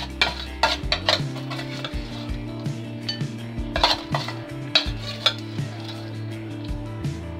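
Metal spoon scraping and clinking against a roasting tin as roast potato wedges are lifted out and put on a plate, several irregular clinks, over background music with held low notes.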